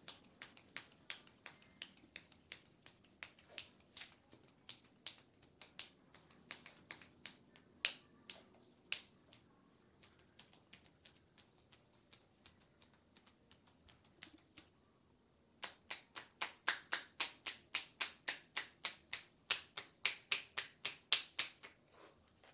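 Percussive massage: hands slapping on a client's arm in a steady rhythm, about three sharp slaps a second, fainter for a few seconds midway, then a louder, faster run of about four or five a second that stops about a second before the end.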